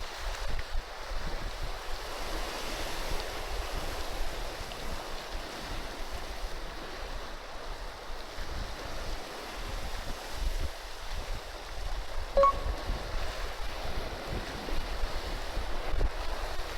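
Sea surf washing steadily, with wind buffeting the microphone. A short, sharp ping sounds once about twelve seconds in.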